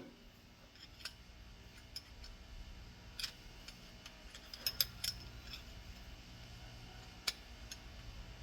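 Scattered light clicks and taps of small safety-valve parts and tools being handled during disassembly, a few close together near the middle and one sharp click later, over a faint low hum.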